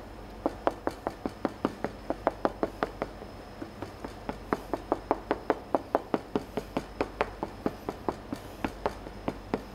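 A metal fork pricking (docking) rolled-out pizza dough: a quick run of light taps, about five a second, as the tines go through the dough and strike the plastic cutting board beneath, with a short pause a little after the middle.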